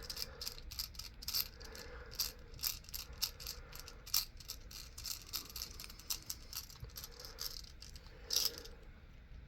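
Irregular small metal clicks and rattles as a padlock is taken apart, its tailpiece being unscrewed and lifted off.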